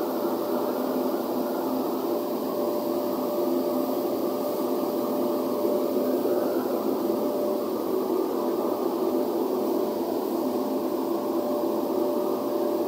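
Rice mill plant machinery running: a steady mechanical drone of motors and machines with a few held hum tones, unchanging throughout.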